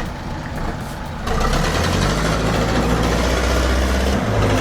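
Heavy truck engine running, jumping louder and rougher about a second in.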